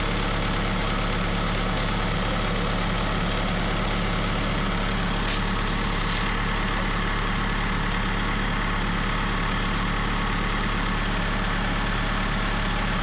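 Forklift engine running steadily at idle, a constant low hum.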